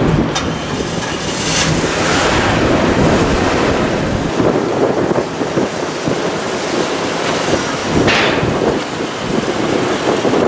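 Wind buffeting the microphone: a loud, steady rushing noise with a couple of brief stronger gusts.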